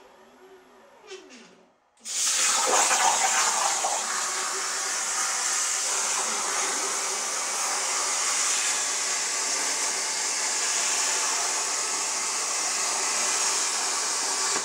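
Stepper motors of a CNC plasma table whine, rising and falling in pitch, as the torch moves into place. About two seconds in, the plasma torch fires and cuts through metal plate with a loud, steady hiss.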